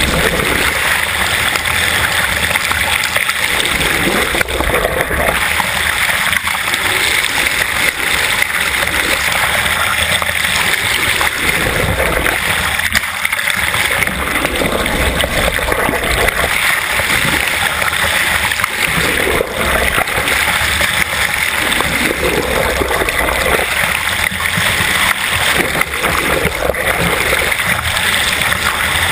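Water rushing and splashing steadily over an underwater bow-mounted camera as the yacht moves through the sea.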